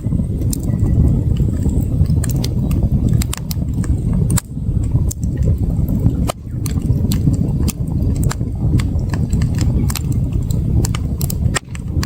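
Campfire crackling: many sharp, irregular snaps and pops of burning wood over a steady low rumble.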